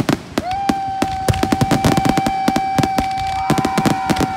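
Aerial fireworks going off in quick succession: dense crackling pops and bangs. A steady high whistle starts about half a second in and holds unchanged over the top.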